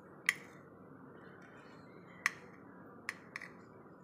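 Metal spoon clinking against a plate while scooping rice: four short, sharp clinks, one just after the start and three more in the second half.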